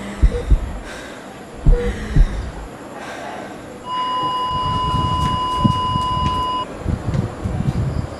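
A few low thumps in the first two seconds, then a steady electronic beep starting about four seconds in, held for nearly three seconds before cutting off.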